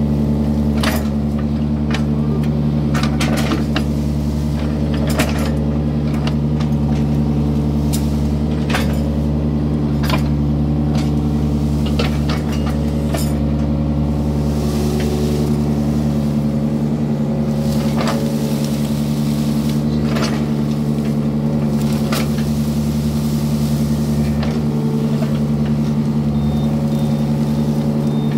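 Yanmar excavator's diesel engine running steadily under work, with repeated sharp clanks and knocks from the bucket and arm as it digs out a muddy ditch.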